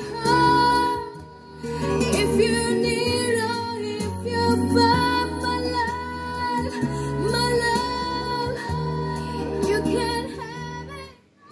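A female-vocal song with acoustic guitar, played from a YouTube audiophile compilation. The music drops out briefly near the end.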